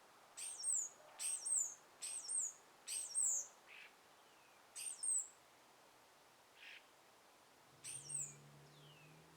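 A songbird repeating a short, very high two-note chirp: four in quick succession about a second apart, then two more after pauses. Fainter, lower chirps and a short falling whistle from other birds come in between.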